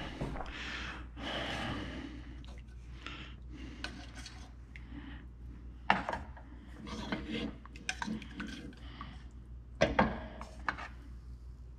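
A spoon scraping and clinking against a pan and plate while spooning out cream sauce, with sharp clinks about six seconds and ten seconds in.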